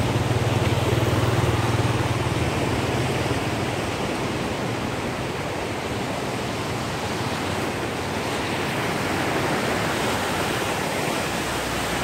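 Steady rush of water pouring through open sluice gates and churning below the dam. A low hum sits under it for the first few seconds, then fades.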